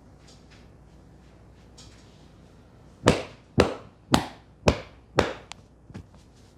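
Five loud, sharp hand slaps about half a second apart, then two fainter clicks: percussive strokes of a head massage.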